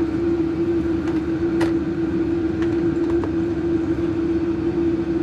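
A steady machine hum with a low rumble, with a few light clicks and taps from fitting the battery back into the scooter.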